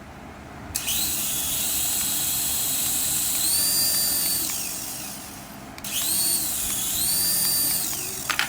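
Small electric motor of a remote-control toy whirring at high speed. Its high whine rises and falls several times, as if being revved up and down, before it cuts off near the end.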